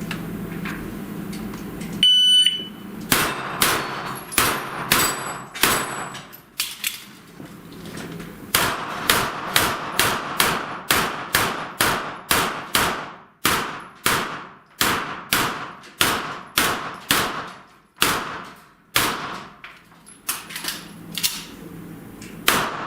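An electronic shot-timer beep about two seconds in, then a fast string of about thirty gunshots at steel plates and poppers, fired about two to three a second. There is a pause of roughly two seconds partway through, then the shooting goes on evenly until near the end.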